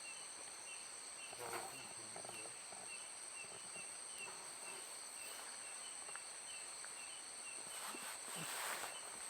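Night insects: a steady high-pitched drone of several tones, with a short chirp repeating about twice a second. A couple of faint rustles, one about a second and a half in and a longer one near the end.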